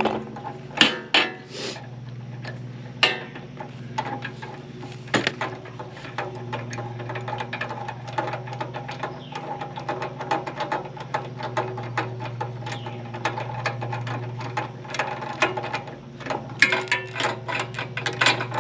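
Ratchet wrench clicking and tools knocking on metal as the spark plug is loosened and taken out of a small gasoline engine, over a steady low hum.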